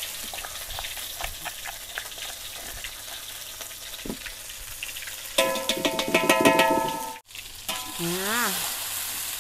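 Ground spice paste sizzling in hot oil in a wok, with light clicks and scrapes of a metal spatula. About halfway through, a short burst of music, a held chord, is the loudest sound for about two seconds, then cuts off and the frying sizzle goes on.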